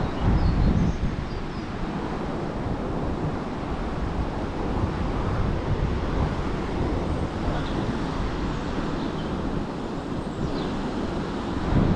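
Strong wind blowing on the microphone, a steady low rumble with heavier gusts about half a second in and near the end.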